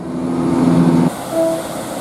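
Train horn sounding a low chord for about a second, cutting off, then a short toot, over the rushing noise of a moving train.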